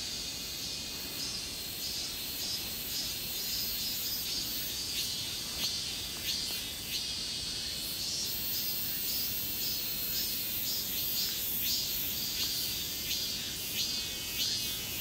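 A steady high-pitched insect chorus, crickets and similar insects, made of many short chirps repeating.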